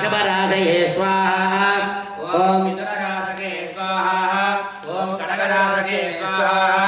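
A man's voice chanting mantras in short recited phrases, over a steady low hum, during a Hindu homa fire ritual.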